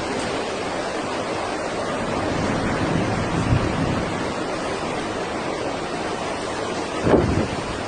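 Steady rush of typhoon wind and rough water, with wind buffeting the microphone and a louder gust about seven seconds in.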